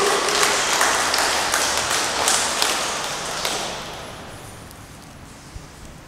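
Audience clapping, fading out about four seconds in.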